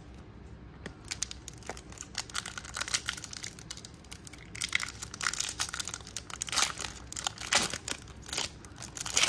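Foil wrapper of a Pokémon trading card booster pack crinkling and tearing as it is worked open by hand, a stubborn pack that resists opening. The crackles come thicker and louder from about halfway through.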